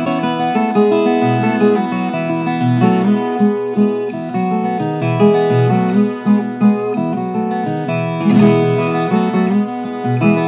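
A viola caipira, a Brazilian ten-string guitar with a solid jacarandá mineiro back and sides, Canadian cedar top and aroeira fingerboard and bridge, being fingerpicked. A melody of plucked notes rings over held chords, with one chord strummed about eight seconds in.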